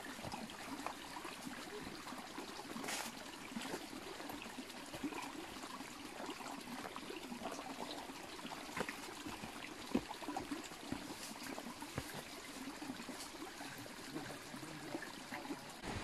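Water trickling in a small channel beside a footpath, with scattered footsteps on dirt and dry leaves.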